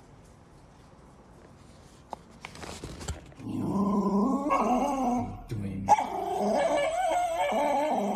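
A dog vocalizing twice, each a long wavering sound lasting about two seconds, starting about three and a half seconds in and again about six seconds in.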